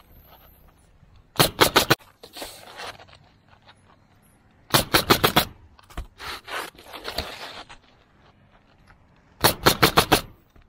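Pneumatic coil roofing nailer firing nails into asphalt shingles in three quick bursts of four to six shots each, with softer scraping of shingles being handled between the bursts.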